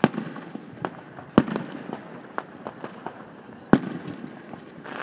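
Aerial firework shells bursting: a run of sharp bangs at uneven intervals, the loudest about a second and a half in and again a little over two seconds later, with fainter bangs between.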